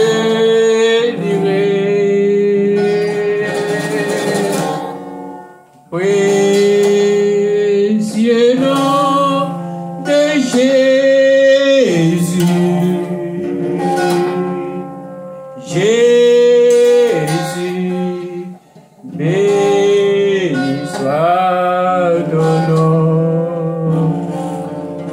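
A man singing a French hymn, accompanying himself on an electric guitar, in long phrases with brief breaks about six and nineteen seconds in.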